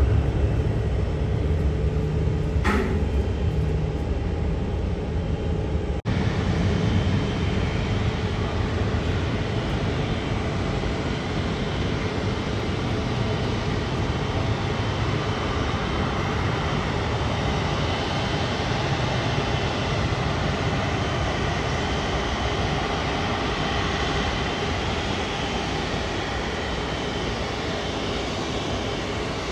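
Airbus Beluga XL's Rolls-Royce Trent 700 turbofans running at low power as the aircraft rolls on the ground: a steady jet roar with a faint whine over a deep rumble. The rumble is heavier in the first few seconds, and there is a brief break about six seconds in.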